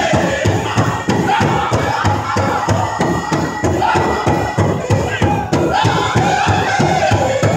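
Powwow drum group singing a chicken dance song: men's high voices in unison over a big drum struck in a fast, steady beat.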